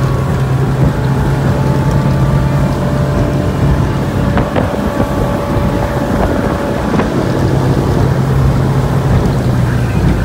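2004 Sea Ray 200 Sport's engine running steadily at speed, under heavy wind noise on the microphone and the rush of water along the hull. The steady engine note is buried in choppy noise for a few seconds in the middle, then comes back.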